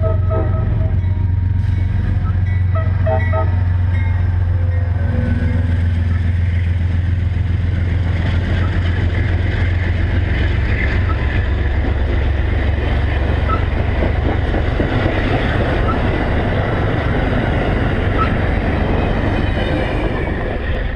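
Amtrak P42DC diesel locomotive horn giving short blasts in the first few seconds, then the train running past: a steady low diesel drone under a rushing of wheels on rails that grows louder.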